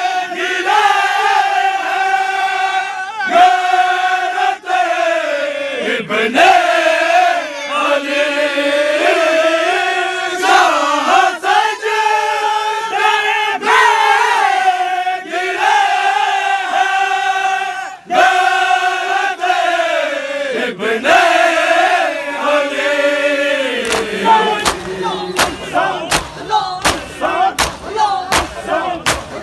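Group of men singing a noha, a mournful Shia lament chanted together in a loud chorus. About 24 seconds in, the singing thins and rhythmic chest-beating (matam) comes in: sharp open-hand slaps on bare chests about twice a second.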